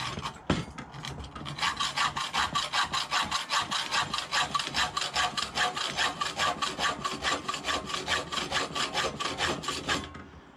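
A hacksaw cutting through steel electrical conduit held in a vise, in rapid, even back-and-forth strokes with a metallic ring, which stop near the end as the piece is cut off.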